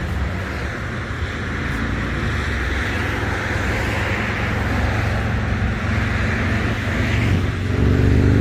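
Steady low, engine-like rumble of road traffic with a hiss over it, growing louder near the end.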